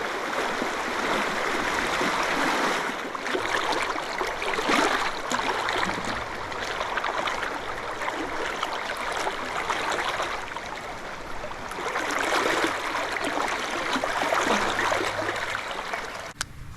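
Rushing river current, swollen after heavy rain: a steady wash of moving water that swells and eases every few seconds, cutting off suddenly near the end.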